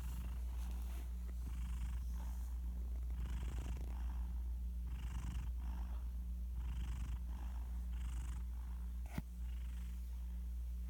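Domestic cat fast asleep, snoring lightly: soft, airy breaths come about every second and a half over a steady low rumble. There is a single sharp click just after nine seconds.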